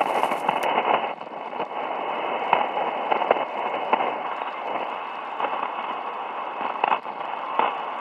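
Shortwave static from a Drake 2B valve communications receiver tuned to the 40-metre band: a steady, narrow-band hiss with frequent sharp crackles of atmospheric noise.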